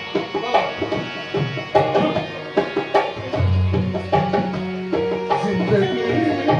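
Live tabla playing with sharp strokes, joined about three and a half seconds in by a melody instrument holding long notes. It is the instrumental introduction to a Hindi song.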